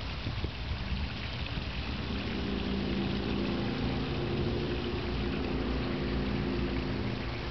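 Water splashing and rushing steadily down a small backyard rock waterfall from a spillway bowl. From about a second and a half in, a low steady engine-like hum sits under the water, fading out near the end.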